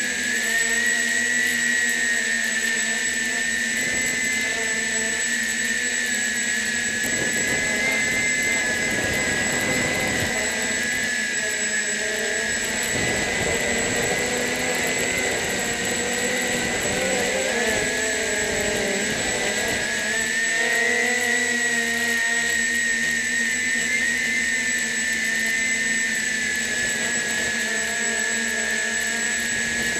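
Walkera MX400 quadcopter's electric motors and propellers whining steadily as heard from its onboard camera, the pitch wavering slightly as the drone flies. A lower rushing sound joins in from about seven to twenty seconds in.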